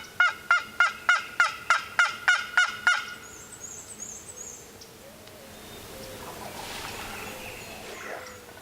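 A turkey yelping: a fast, even run of about a dozen loud yelps over the first three seconds that stops abruptly. It is followed by a brief high chirp from a small bird.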